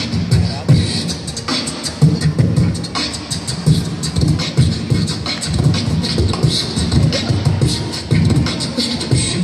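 Beatboxer performing into a microphone over a PA: rhythmic bass-drum kicks with short hissed hi-hat and snare sounds laid over them.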